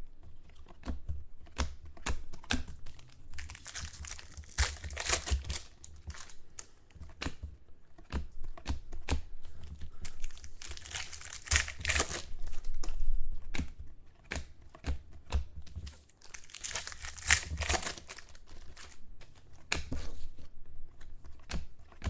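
Foil trading-card pack wrappers being torn open and crinkled, with many small crackles and clicks and louder bursts of tearing a few times.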